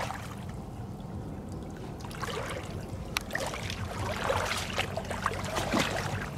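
Water sloshing and splashing as a person wades through shallow floodwater, the splashes irregular and busier after about two seconds, with one sharp click in the middle.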